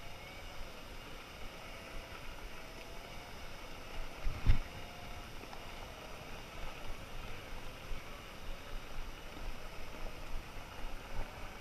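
Segway PT riding along an off-road track: a faint wavering motor whine over steady rumble and wind noise, with one sharp thump about four and a half seconds in.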